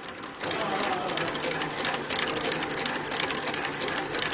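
Industrial sole stitching machine sewing through the edge of a jute-rope espadrille sole. The needle mechanism makes a rapid, even clatter of clicks that starts about half a second in and then runs steadily.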